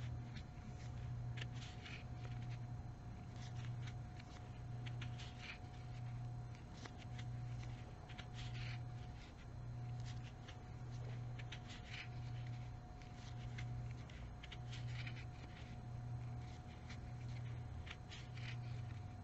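Crochet hook and yarn being worked: soft scratching and light clicks as stitches are made, over a low hum that swells about once a second.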